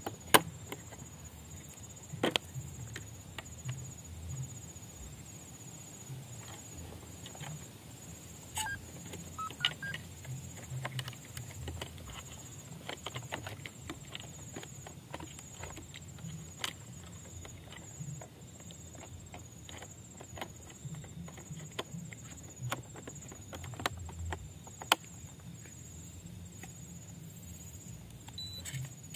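Scattered small plastic clicks and taps as the body shell of a WPL C54 RC truck is handled and lifted off its chassis to get at the wiring. A steady, high insect trill pulses in the background.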